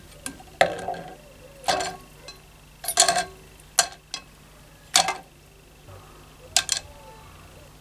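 Metal lantern parts clinking and knocking as they are handled: about six sharp clinks, irregularly spaced a second or so apart, some with a short metallic ring.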